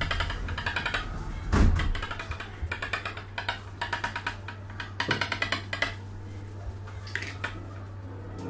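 A knife cutting sponge cake around a plastic cake-board template, scraping and clicking along the plastic edge in short bursts of fast ticking, with a thump about one and a half seconds in. A steady low hum runs underneath.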